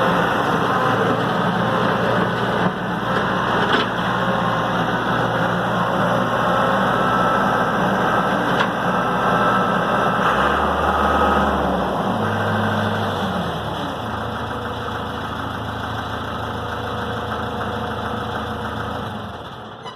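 Case 1835 skid steer's diesel engine running steadily. For a couple of seconds about halfway through its note shifts in pitch, and it grows quieter toward the end.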